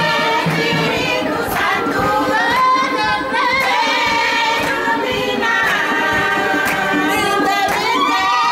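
A group of voices, mostly women's, singing a song together, with held and sliding notes.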